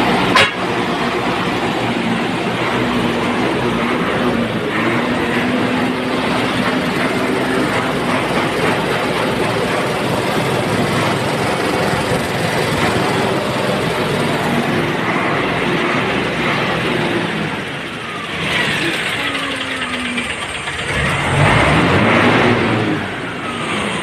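Motor vehicle engines running steadily in traffic, with a sharp click about half a second in and vehicles passing near the end.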